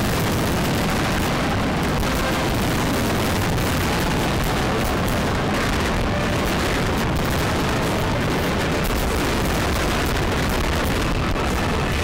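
Fireworks display: many aerial shells bursting at once in a dense, unbroken run of booms and crackling.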